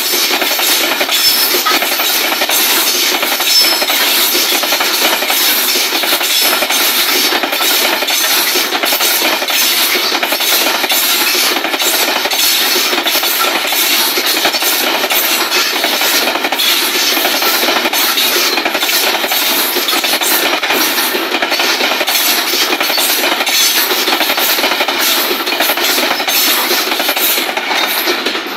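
Freight train of new open-top coal wagons passing close by: steel wheels clatter over the rail joints in a steady, loud run of clicks and rumble as the wagons roll past.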